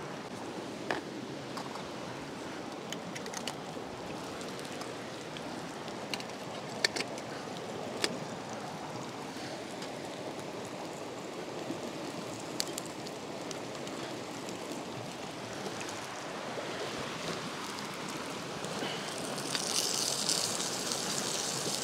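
Creek running steadily, with a few scattered sharp clicks and a louder hiss for the last couple of seconds.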